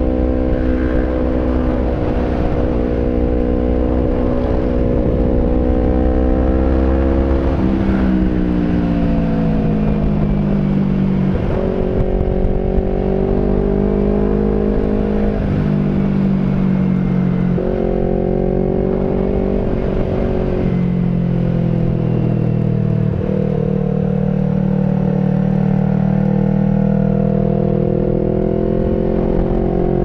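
Yamaha R25's 250 cc parallel-twin engine running through a 3Tech Racing Evolution aftermarket exhaust while riding, heard from on the bike. The engine note is steady, and its pitch glides and steps up and down several times with the throttle.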